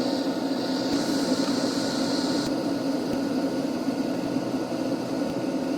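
Small electric fan or blower whirring steadily, with an added hiss over the first couple of seconds.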